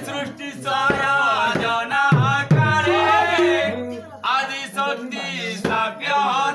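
Folk singing over hand drums, Sambalpuri Karma-dance music: a voice sings wavering phrases while the drums strike every second or so, some deep strokes sliding down in pitch.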